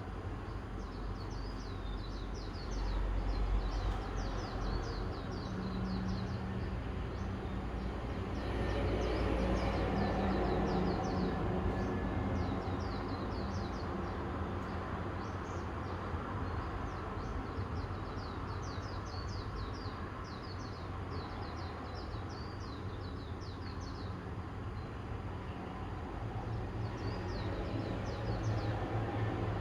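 Small birds chirping over and over in short, high chirps, over a low rumble of distant vehicle traffic that swells a few times.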